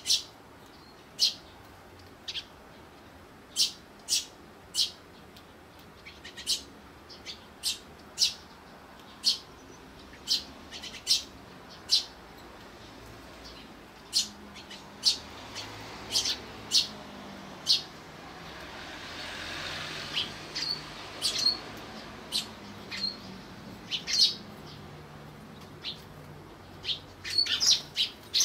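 Eurasian tree sparrows chirping around a seed dish: short, sharp chirps about once a second, some in quick clusters. A soft rushing noise swells and fades about two-thirds of the way in.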